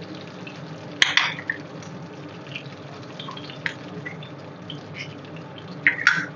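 Butter sizzling and bubbling in a hot frying pan for a tadka, with scattered small pops. It flares up about a second in as ginger slices go into the hot butter, and again near the end as cumin seeds are added.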